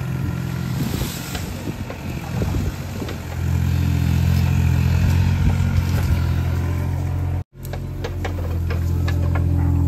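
Hitachi mini excavator's diesel engine running, its note stepping up and growing louder about three and a half seconds in and holding steady after. The sound cuts out for an instant near the end, followed by scattered sharp clicks over the engine.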